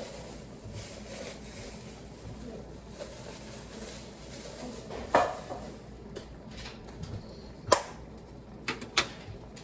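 Kitchen items being handled while cooking: a few short sharp knocks and clicks, one about five seconds in, another near eight seconds and two close together near the end, over a faint steady hiss.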